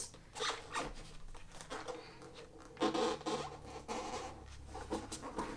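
Irregular scraping and rustling of a tight-fitting iPad Pro box lid being worked open by hand, cardboard rubbing against cardboard as it slowly slides off.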